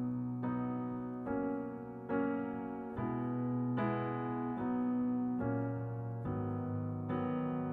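Background piano music: a slow run of chords struck about once a second, each ringing and fading before the next.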